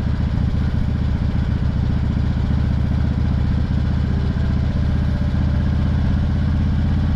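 Harley-Davidson V-twin running steadily through a loud true-dual exhaust (Python head pipe, CVO mufflers fitted with performance baffles), a deep pulsing exhaust note with no change in engine speed, as the bike cruises.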